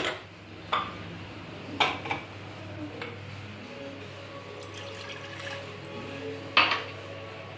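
Water being poured into a pan to be heated, with three sharp clinks of a metal pan or utensil, about one and two seconds in and again near the end. Faint background music runs underneath.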